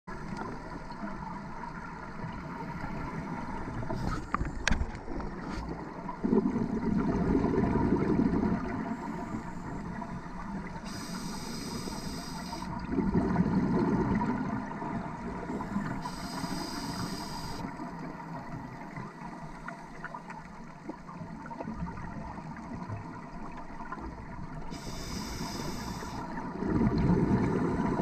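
Scuba diver breathing through a regulator underwater: a high hiss on each inhale followed by a low gurgling rush of exhaled bubbles, repeating every several seconds for about three breaths, over a steady faint hum.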